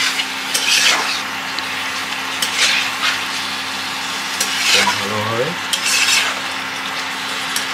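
Yogurt-marinated chicken frying in a kadai with a steady sizzle, while a spatula stirs it and scrapes the pan in several strokes as the chicken is browned after going in.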